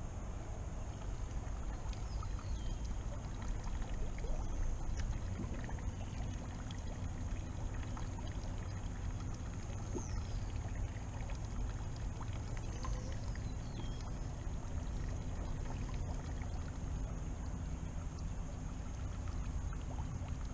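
Steady low rumble and hiss of a bass boat on calm water, with a faint steady high whine throughout and a few faint high chirps.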